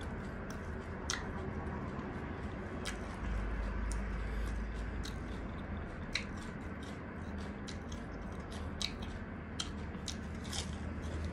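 Close-miked chewing and crunching of a lettuce leaf wrapped around ginger and onion, with irregular wet mouth clicks.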